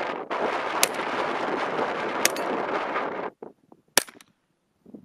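Three single shots from a Palmetto State Armory .22 LR AR-15 pistol upper with an 8.5-inch barrel, each a sharp crack, roughly one and a half seconds apart. Wind buffets the microphone under the first two, then cuts off abruptly, so the third shot comes out of near quiet.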